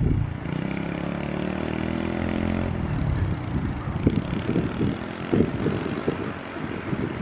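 Kawasaki KLX110 dirt bike's small single-cylinder four-stroke engine running as the bike rides off across the field; its steady engine note drops away about two and a half seconds in, leaving a fainter, uneven rumble.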